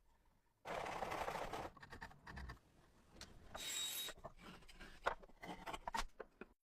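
Hand tools scraping and rubbing on wood: one long scrape about a second in, then shorter scrapes, and a run of sharp taps and clicks near the end.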